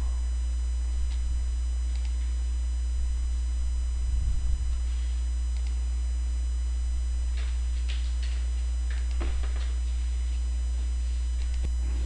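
Steady low electrical hum with a faint high whine on the recording, with a few faint computer mouse clicks scattered through it.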